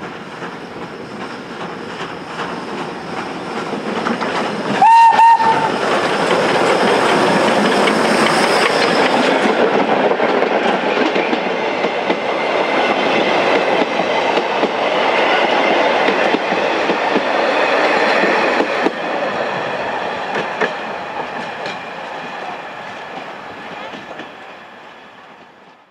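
Steam train passing close by. The locomotive gives two short whistle blasts about five seconds in, then the carriages run past with a clickety-clack over the rail joints, fading as the train moves away.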